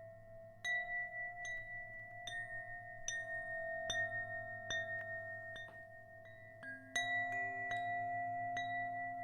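Bell-like notes struck slowly at an even pace, about one every 0.8 seconds, each ringing on under the next. A louder strike about seven seconds in brings in a lower note.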